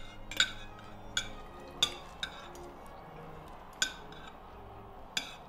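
Cutlery clinking against dinner plates as people eat: about six sharp clinks, irregularly spaced, the loudest about half a second in.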